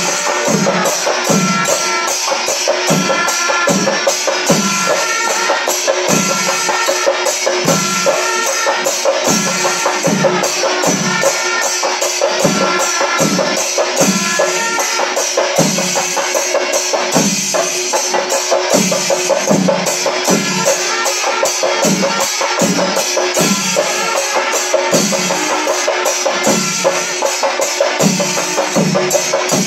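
Kerala chenda melam ensemble playing: chenda drums beating a steady rhythm with ilathalam cymbals clashing, and held notes from the horns over the top.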